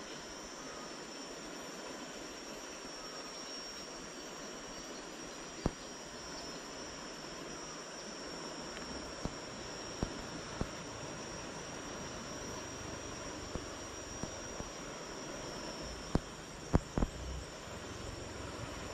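Riverside ambience: a steady even hiss with a thin, high insect drone held on one pitch, broken by a few short sharp clicks, three of them close together near the end.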